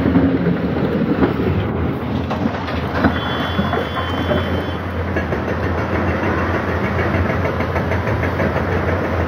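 Heavy diesel engines of hydraulic excavators running steadily with a constant low hum, with a few sharp knocks of rock being moved.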